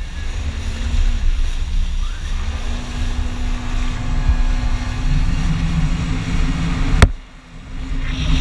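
Jet ski engine running at speed under wind rush and water spray; its pitch climbs a couple of seconds in as the throttle opens, then holds steady. About seven seconds in a single sharp knock is followed by a brief drop in the sound.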